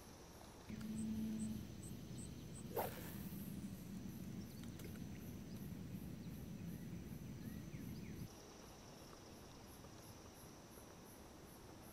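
Crickets chirping in an even pulsing rhythm, two or three pulses a second. Under them a low hum runs from about a second in until about eight seconds, and there is one sharp click about three seconds in.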